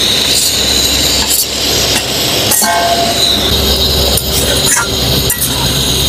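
Metal spatula stirring chicken curry and tomatoes in a steel kadhai, with several short scrapes against the pan, over a steady low rumble and hiss. A brief horn-like tone sounds about two and a half seconds in.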